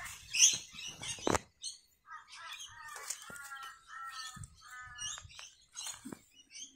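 Rustling of bitter melon vine leaves with a few sharp clicks as the fruit's stem is worked with metal pliers. From about two to five seconds in, a bird calls in a run of five or six short, repeated chirps.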